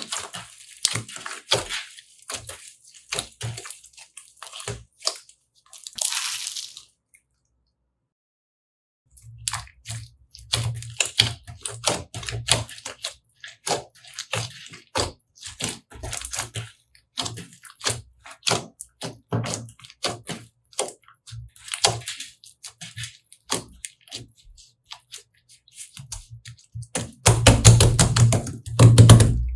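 Slime being squished and kneaded: rapid wet, sticky clicks and pops. It breaks off briefly about a third of the way in and turns into a louder, denser crackling near the end.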